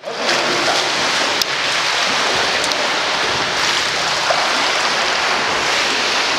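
Water splashing continuously as swimmers thrash and kick in a swimming pool.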